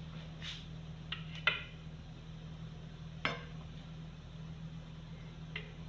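A few light clinks and taps of a kitchen utensil against a pan while batter is spread over it, four in all, spaced out, over a low steady hum.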